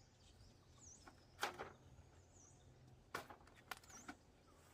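A small bird's short high chirp repeating about once a second over a quiet outdoor background. A few sharp knocks cut across it, the loudest about a second and a half in and a cluster of three near the end.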